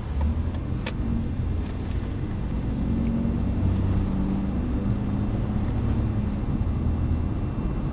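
Taxi car driving: a steady low engine and road rumble, with an engine hum that wavers slightly in pitch. There is a single sharp click about a second in.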